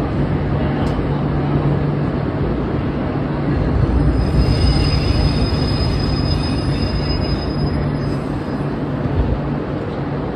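Subway train running through a tunnel, heard from inside the car: a steady rumble of wheels on rail, joined from about four seconds in by a high metallic squeal from the wheels that fades out some four seconds later.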